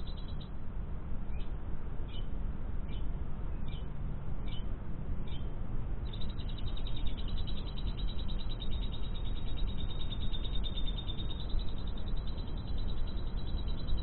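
Lovebird song played as masteran, a lovebird-sound recording used to train a caged bird: a few separate high chirps at first, then from about six seconds in a continuous rapid high trill, over a steady low background hiss.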